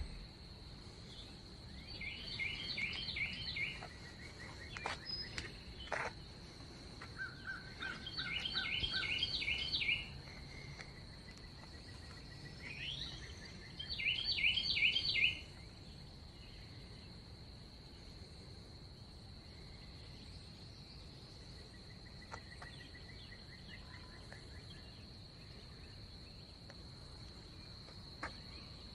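Rural outdoor ambience: a steady, high-pitched insect drone, over which a songbird sings three loud bursts of quickly repeated notes, each lasting a couple of seconds, in the first half.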